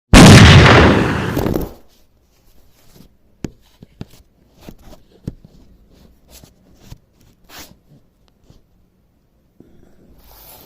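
A loud sudden burst of rustling noise that fades over about a second and a half, then faint scattered clicks and rustles of small parts and a pouch being handled.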